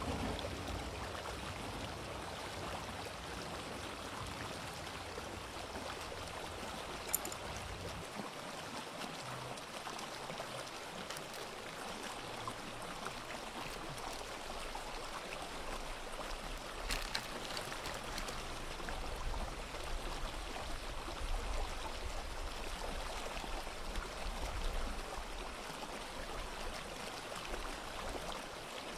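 Sea waves washing on a shore: a steady rush of surf that swells gently, with a single short click about seven seconds in.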